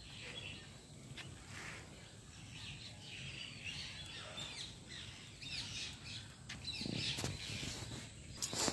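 Several birds chirping and calling in short, high chirps over a low outdoor background hum, busier in the second half, with a sharp knock or two near the end.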